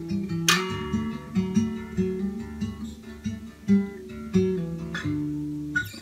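A 1979 Sigma DM18 dreadnought acoustic guitar with a solid spruce top, fingerpicked: single plucked melody notes over alternating bass notes, each ringing on briefly. Recorded through a phone's microphone.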